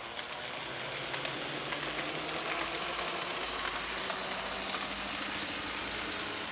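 N-gauge DCC model train's electric motor whirring and its wheels running on the track, a steady hum that gets louder over the first couple of seconds as the train gently builds speed under programmed acceleration.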